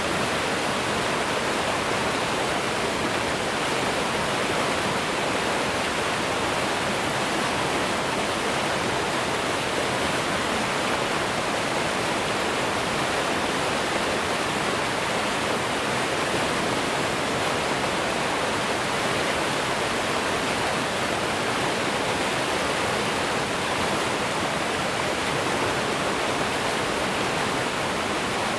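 Mountain stream rushing over rapids, a steady, even roar of fast-flowing water.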